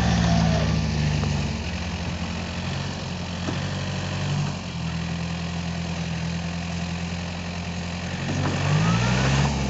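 Yanmar EF494T tractor's diesel engine running steadily as it pulls a rotary tiller through paddy mud. Its pitch rises and the engine gets louder near the end.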